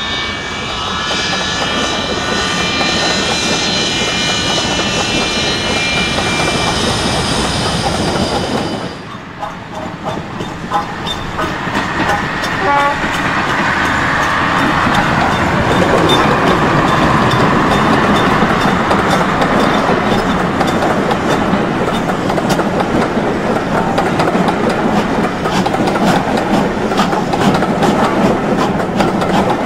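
Railway locomotive and train running sounds. A steady whine with several high tones cuts off abruptly about nine seconds in. It is followed by a train running with repeated wheel clicks over rail joints and a rising tone.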